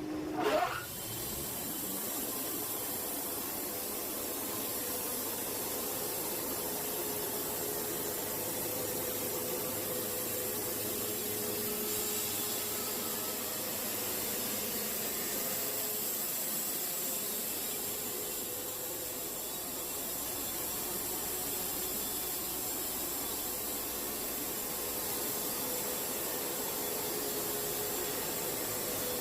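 Sawmill running: its engine revs up in a quick rising whine at the start, then runs steadily under load as the blade cuts a board off the log.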